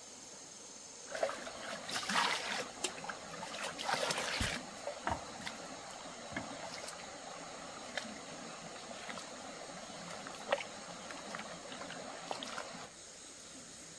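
Water splashing and trickling with scattered knocks and clicks, which stops suddenly near the end, over a steady high insect drone.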